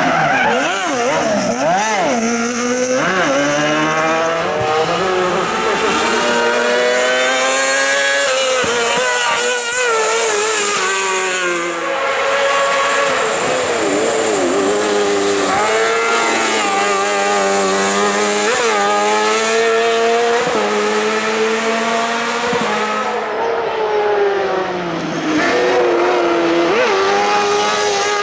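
Motorcycle-engined kart-cross buggy racing hard, its engine revving high, the pitch climbing through each gear and dropping at the shifts and lifts, over and over.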